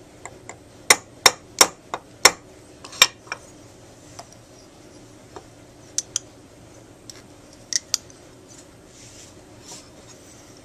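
Small hammer tapping the bent tip of a metal Link NY Tone Master tenor saxophone mouthpiece against the horn of a steel bench anvil, to flatten a tip rail that had been bent concave. There are about seven sharp metallic taps in the first three and a half seconds, then a few lighter clicks as the piece is handled.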